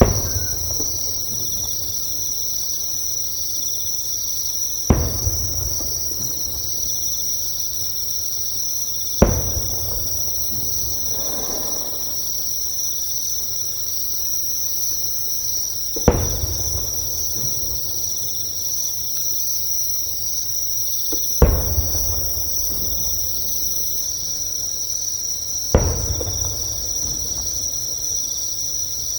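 A steady high-pitched chorus of insects calling close by, with the dull booms of distant fireworks bursting six times, every four to seven seconds, each trailing off in a low rumble.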